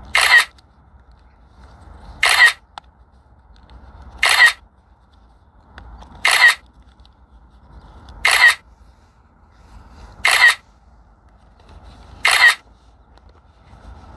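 Camera-shutter sound from a drone's controller, repeating evenly about every two seconds, once for each photo as the drone shoots a hyperlapse sequence.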